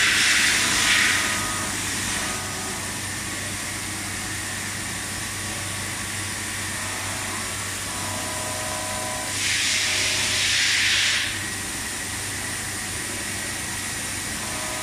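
Machine-shop background noise: a steady low hum with a thin high whine, and two stretches of hiss, one fading out in the first two seconds and another lasting about two seconds around ten seconds in.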